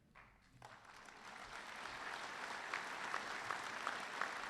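A large audience applauding, starting about half a second in and building louder.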